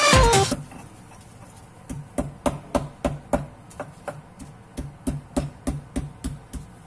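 Stone pestle (ulekan) pounding and grinding chilies, shallots and garlic in a stone mortar (cobek): regular stone-on-stone knocks about three a second, starting about two seconds in. Background music cuts off in the first half-second.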